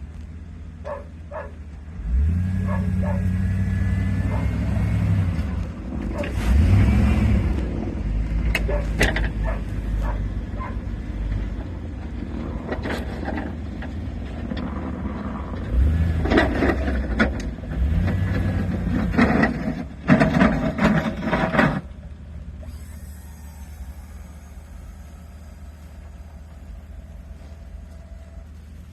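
Pickup truck with a Myers snowplow running as it plows snow, the engine getting louder and busier in two stretches, about two seconds in and again past the middle, then settling quieter toward the end.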